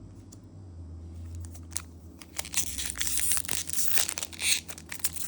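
Crinkling and tearing of a Magic: The Gathering booster pack's foil wrapper being handled and opened. It starts about two seconds in as dense, irregular crackling and is loudest near the end.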